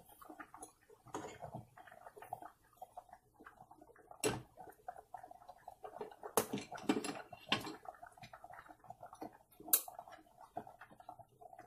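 Cooking utensils knocking and scraping against a pot and a bowl of cooked ground meat: a scattering of sharp clacks, the loudest about four, six and a half, and ten seconds in.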